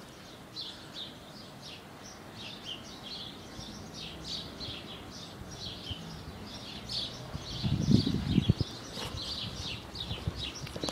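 Many birds chirping at once, a steady chatter of short high chirps that never lets up. A little past two-thirds of the way through comes a loud, low rumble of about a second, the loudest sound here.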